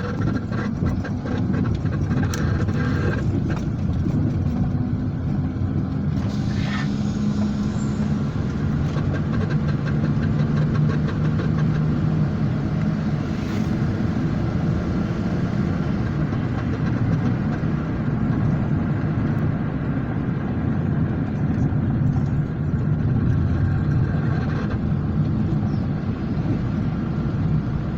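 A vehicle on the move: steady engine and road rumble with a low engine hum, cutting in abruptly at the start. A brief louder hiss about seven seconds in.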